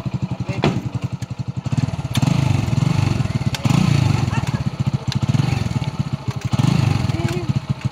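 Motorcycle engine of a sidecar bike ambulance idling, a steady even putter of exhaust pulses that gets louder about two seconds in.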